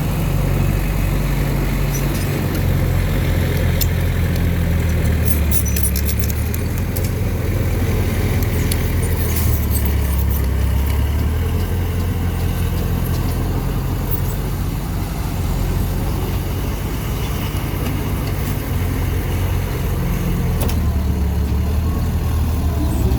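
Large diesel engine of a heavy earthmoving machine running under load, with a cluster of metallic clanks about four to seven seconds in and the engine note shifting near the end.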